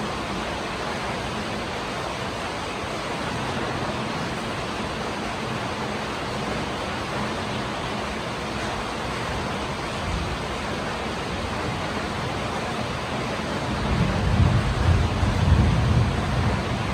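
Steady rain making an even hiss. About three seconds before the end, a louder low rumble comes in and rises and falls under it.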